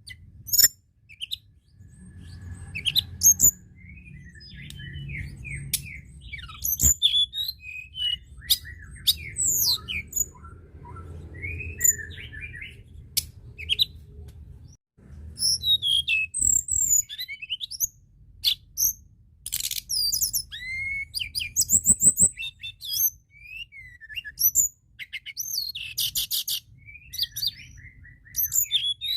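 Tledekan gunung (a mountain flowerpecker) singing: a fast run of thin, high chirps, quick sweeping notes and buzzy trills, with a faint low hum beneath.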